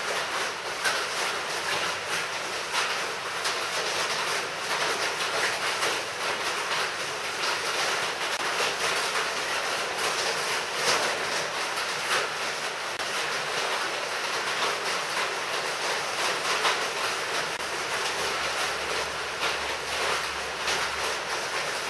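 Soldering iron tip dragged along the edge of a laminate jig, melting through greaseproof paper and thin plastic garden-bag film: a continuous scratchy rustle with irregular light ticks.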